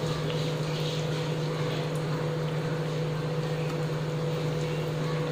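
Bread pieces sizzling as they fry in hot ghee, over a steady low mechanical hum.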